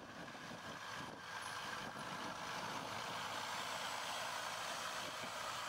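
Laden semi-truck creeping toward the listener over dirt, its engine and tyres a steady noise that grows gradually louder as it approaches.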